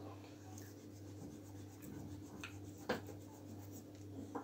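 Pencil scratching faintly on paper as a drawing is sketched and shaded, with a few light taps, the clearest about three seconds in.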